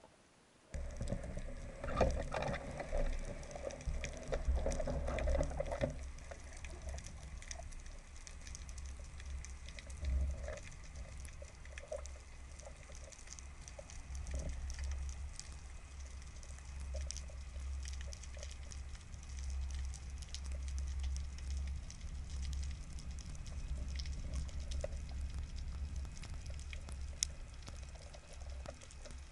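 Underwater sound as a freediver swims down with a speargun: a steady low rush of water moving around the camera, with louder swishing of movement in the first few seconds. Faint scattered clicks and crackle run through it.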